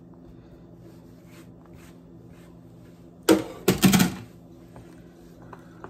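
A plastic cutting board clattering into a stainless steel sink about three seconds in, with a second burst of knocks just after. Before that there are only faint taps and a low steady hum.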